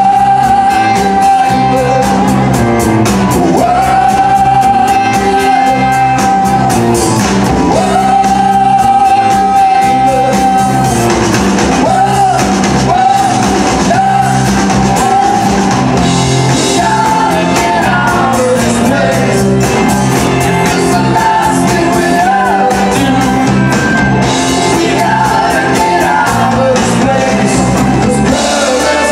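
Live rock band playing: electric guitars, bass guitar and drum kit under a male lead vocal. The singer holds three long notes in the first ten seconds, then sings shorter phrases.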